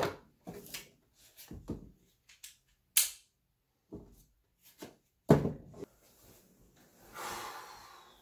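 A person getting into bed: soft bumps and knocks, a sharp click about three seconds in, a louder thump a little after five seconds, then the bedding rustling near the end.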